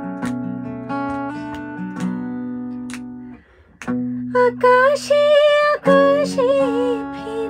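Acoustic guitar playing plucked notes. It breaks off for a moment about halfway, then a woman's singing voice comes in over the guitar.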